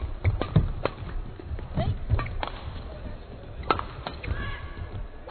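A fast badminton doubles rally: sharp racket strikes on the shuttlecock in quick, uneven succession, with players' footfalls and a brief shoe squeak on the court mat.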